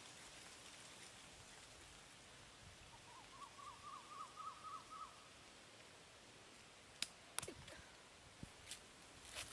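A bird calling a quick run of about ten short, repeated notes, starting about three seconds in and lasting around two seconds, over a faint steady hiss. Two sharp clicks follow about seven seconds in, then two fainter ones.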